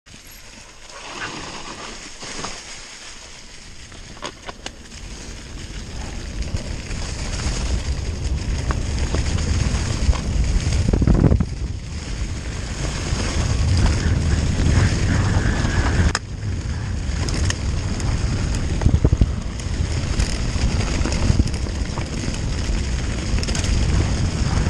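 Mountain bike riding over a trail, with a low rumble of tyres and wind buffeting the microphone plus scattered knocks and rattles; it grows louder over the first ten seconds as the bike picks up speed.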